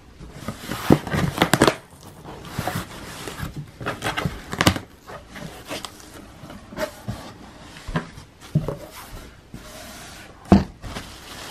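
A cardboard shipping box being opened by hand: the flaps are pulled apart and scraped, with several sharp knocks and rustles. Near the end comes the rustle of the plastic bag packed inside, with one loud knock.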